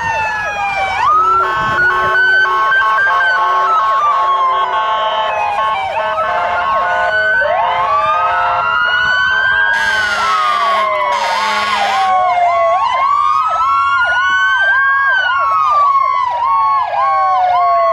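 Several fire truck sirens sounding at once, slow wails rising and falling over one another, with a quicker rise-and-fall tone repeating about twice a second in the last few seconds. Two horn blasts sound about ten seconds in.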